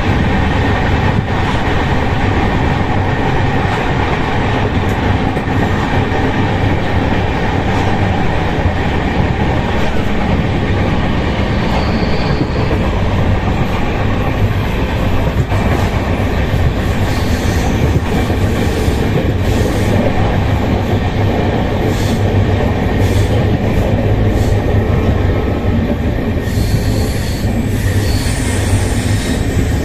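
Express passenger train running at speed, heard from aboard a coach: a steady rumble of wheels on rail mixed with rushing air, with light clicks over rail joints. A brief high wheel squeal comes twice, once midway and once near the end.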